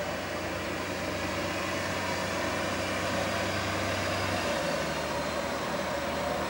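Heavy diesel engine of an airport fire truck running steadily as it drives slowly past, over a steady hum; a low hum cuts out about four and a half seconds in.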